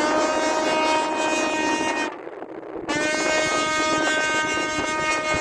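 Tugboat horn sounding two long blasts, the first about two seconds, the second starting just under a second later and held longer.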